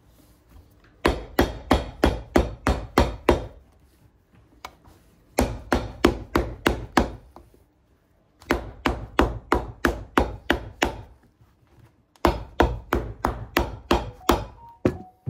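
Cobbler's hammer tapping a new leather sole down onto a boot, pressing the sole into place. The strikes come in four quick runs of about four a second, with short pauses between them.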